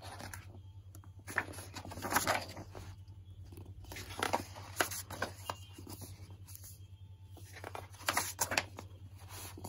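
Pages of a picture book being turned by hand: paper rustling and flapping in several short bursts, over a steady low hum.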